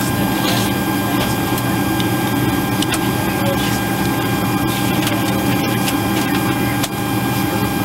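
Steady cabin noise on the flight deck of a Boeing 727 three-engine jetliner: an even hum of the engines and airflow with a few steady thin tones from the cockpit equipment, and a few faint clicks.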